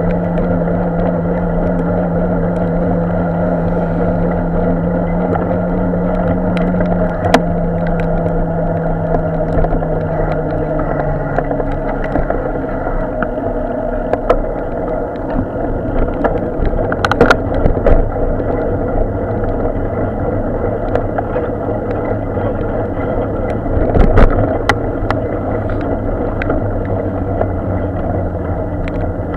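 Bicycle ride on wet city streets: steady road and traffic noise with a low hum that drops in pitch about a third of the way in. Sharp knocks come from bumps about seven, seventeen and twenty-four seconds in.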